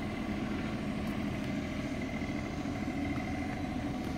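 Diesel engine running steadily, a constant low hum.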